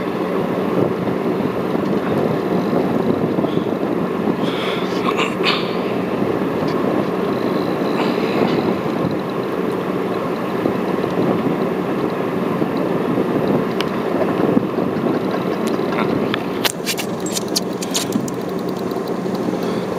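A boat's engine runs steadily under continuous wind and water noise. A cluster of sharp clicks comes near the end.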